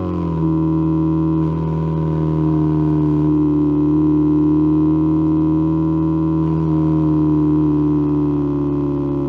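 A homemade electronic sound effect imitating a Subaru EJ20 flat-four's equal-length exhaust, made as a steady tone of several evenly spaced pitches. Its pitch drops in the first half-second, like revs falling, then holds almost steady.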